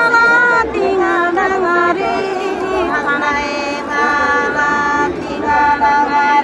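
A woman singing a Nepali folk song in long, held notes that glide from pitch to pitch.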